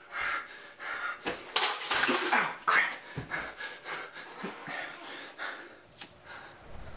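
A person breathing hard with rustling movement in the dark, then one sharp click about six seconds in as a pocket lighter is flicked alight.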